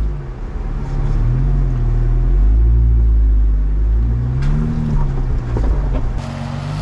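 Jeep Wrangler's engine under light throttle as it creeps over rocks, the revs rising and falling several times, about a second each. There is one sharp knock about two-thirds of the way through.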